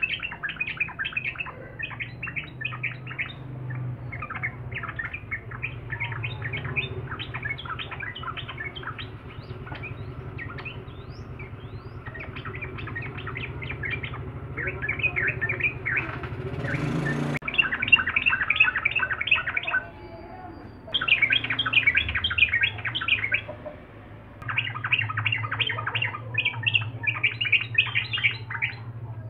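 Yellow-vented bulbul singing in fast, chattering bursts of notes, nearly continuous with two short pauses in the last third.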